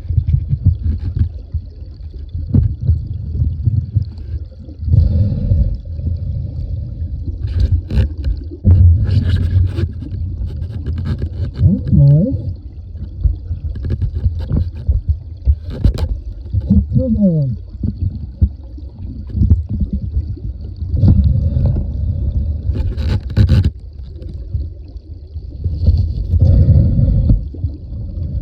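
Creek water splashing and gurgling right at the microphone, with frequent sharp knocks and clicks, and a couple of short wavering bubbling sounds about twelve and seventeen seconds in.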